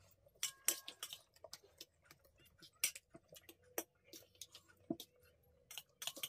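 Metal forks clicking and scraping against steel plates as noodles are eaten: irregular sharp clicks, most densely about half a second to a second in.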